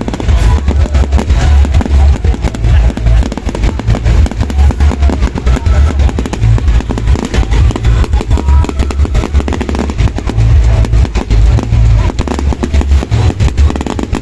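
Fireworks going off, with many sharp cracks and bangs that come thickest in the second half, over a heavy low rumble and music.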